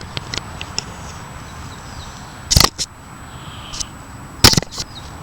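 Two sharp knocks about two seconds apart and a few faint clicks, over a low steady hiss.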